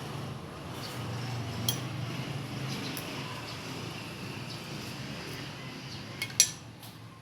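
Cutlery clinking against a plate during eating: a few light, sharp clinks, with a louder double clink near the end, over a low steady background hum.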